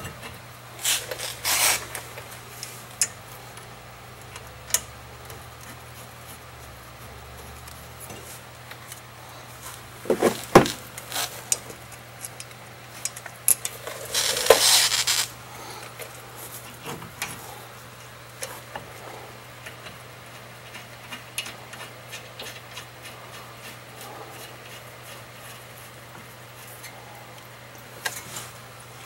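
Metal brake parts and tools clinking and scraping as a disc brake caliper is worked back over freshly fitted pads. There is a sharp clank about ten seconds in and a longer scrape a few seconds later.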